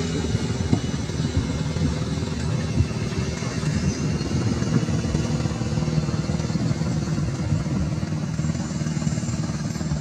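Motor vehicle engine running steadily, a low rumble with some rough crackle over it.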